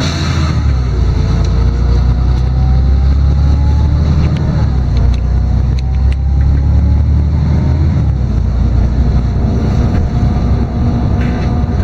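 LiAZ-6213.22 articulated city bus driving, heard from inside: a heavy diesel rumble under a whine that climbs in pitch, drops back and climbs again twice, as the bus accelerates through its gears, then holds a steady pitch.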